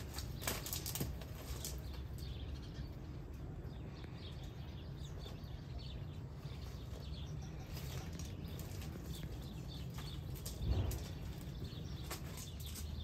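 Footsteps crunching on gravel, with faint bird chirps and a low steady background rumble. A dull thump about eleven seconds in is the loudest sound.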